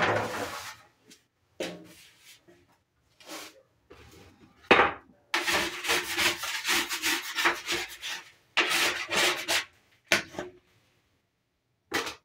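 Dough being rolled and rubbed against a wooden worktable: quick rubbing strokes in spells, busiest from about five to ten seconds in, with a few sharper knocks on the wood.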